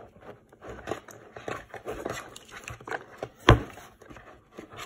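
Hands working kinetic sand in a plastic play tray: small scrapes and taps of the plastic mold and tray, with one sharp knock about three and a half seconds in.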